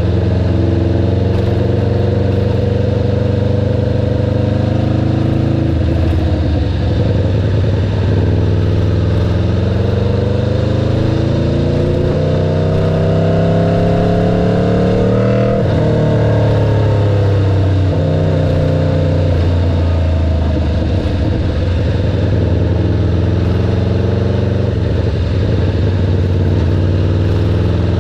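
Aprilia RSV4 V4 motorcycle engine running hard. The revs climb steadily for about ten seconds, drop sharply, then rise and fall a little and fall away near the end.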